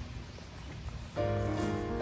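Faint low background noise, then background music starts about a second in with held, layered notes.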